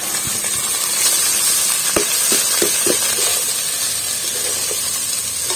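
Hot ghee sizzling steadily in a steel kadai as cooked rice is tipped in and stirred, with a few knocks and scrapes of a wooden spatula against the pan about two to three seconds in.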